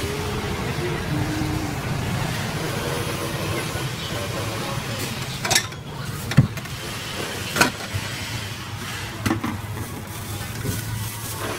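Street traffic noise, with motorbikes and cars passing under a steady low hum and faint background voices. Four sharp knocks come in the second half, the second one the loudest.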